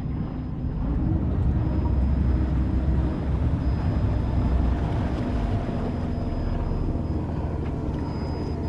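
A boat's motor running steadily at low speed, a little louder between about one and five seconds in.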